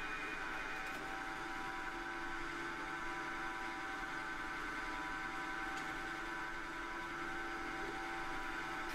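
Pillar drill running steadily with a hole saw in the chuck: an even motor hum made of several fixed tones, without a pause.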